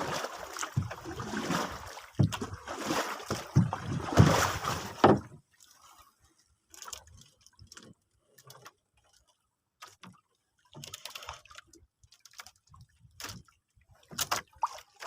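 Water sloshing and splashing for about five seconds, then only scattered small splashes and drips.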